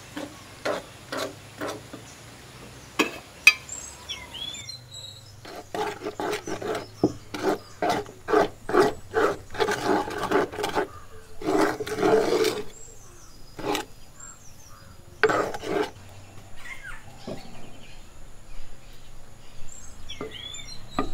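Spoon stirring and scraping a thick white batter against the sides of a clay bowl, in runs of quick strokes about two a second with short pauses. Birds chirp faintly in the background.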